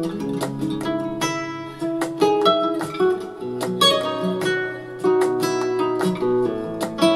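Guitar music played from a CD on a Kenwood DP-520 CD player, with plucked notes and strums.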